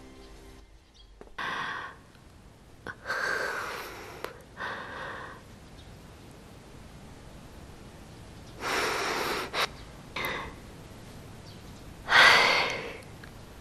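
A woman's heavy breaths and sighs in distress: about six separate breaths, the loudest near the end.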